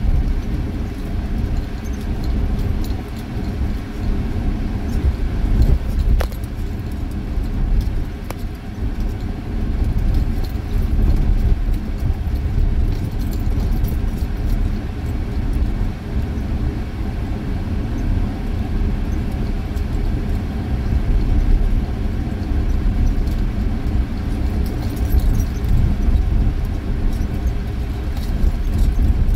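Inside a moving vehicle's cab while driving on beach sand: a steady low rumble of engine and tyres, with a few small clicks and rattles from loose things in the cab.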